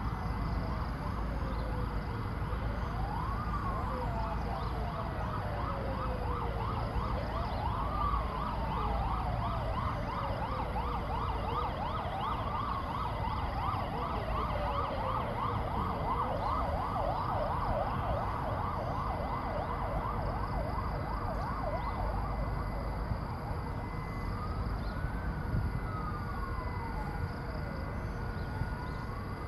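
Fire truck sirens. One runs a wail, rising quickly and falling slowly about every four seconds. A second siren joins with a fast yelp, several sweeps a second, from about eight seconds in until about twenty-one seconds, over a low engine and traffic rumble.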